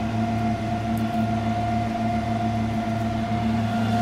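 Steady mechanical hum made of several even tones, unchanging throughout.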